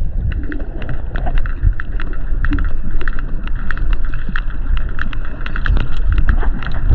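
Sperm whales clicking underwater: a rapid, uneven run of sharp clicks, several a second, the patterned click sequences called codas, over a low rumble of water noise.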